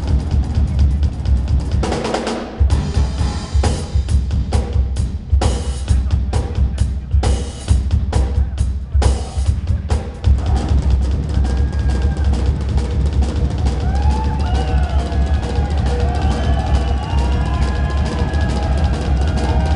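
Live band music led by a Sonor drum kit: a steady bass drum under a run of loud snare and cymbal hits through the first half. About halfway through, the crashes ease off and a lead melody line with bending notes comes in over the drum groove.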